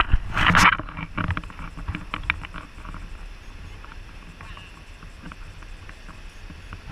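Water lapping and splashing against the tubes of an inflatable river raft, with a louder splash about half a second in, scattered small clicks and a steady low rumble.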